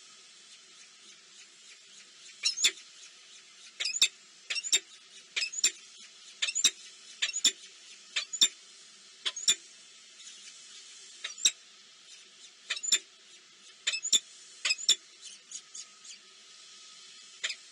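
Small birds chirping: many short, sharp, high-pitched chirps in irregular succession, starting about two seconds in, over a faint steady hiss.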